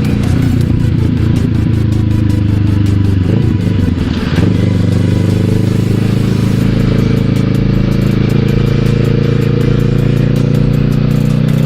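Kawasaki ER-6n's parallel-twin engine running at a steady speed, with a brief change in engine note about four seconds in before it settles steady again.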